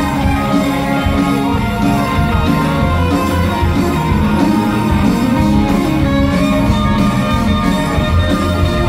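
Live progressive rock band playing loudly: electric guitar with drums and keyboards, continuous with no break.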